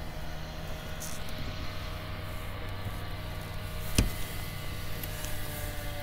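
Old Town Sportsman Autopilot 136 kayak's electric trolling motor running steadily, a low hum with a thin whine over it. A single sharp click about four seconds in.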